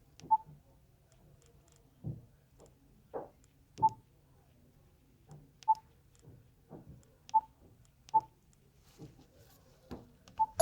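BlackBerry Curve 9320 key tones: about six short single beeps, spaced irregularly a second or two apart, among soft clicks of the phone's keys and trackpad as its menus are worked.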